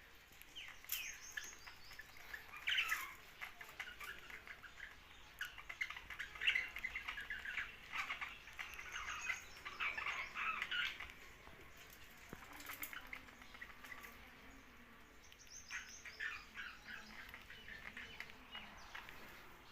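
Young budgerigars chirping in quick, dense runs of short notes, with a quieter spell a little past the middle before the chirping picks up again.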